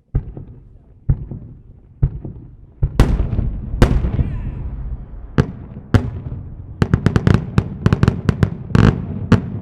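Four 5-inch aerial firework shells fired in quick succession: spaced thuds early on, then loud sharp bangs of the shells' reports, crowding into a rapid string of bangs in the last few seconds.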